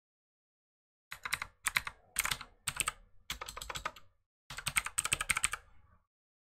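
Computer keyboard typing: several quick runs of keystrokes with short pauses between them, starting about a second in and stopping shortly before the end.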